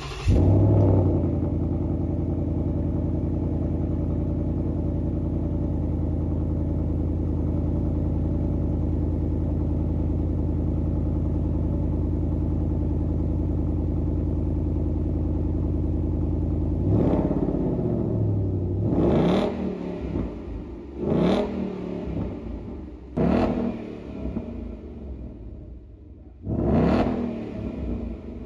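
A V8 muscle-car engine, just started, runs at a steady idle, then is blipped five times at roughly two-second intervals near the end. Each rev climbs sharply and falls back to idle.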